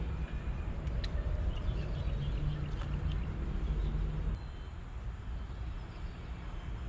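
Steady low rumble of distant traffic that eases off about four seconds in, with a few faint ticks over it.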